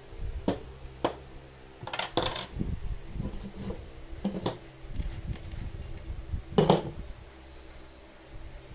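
Steel bolts, nuts and cutting-stand parts handled and set down on a tabletop: about half a dozen scattered metallic clinks and knocks, the loudest about two-thirds of the way in.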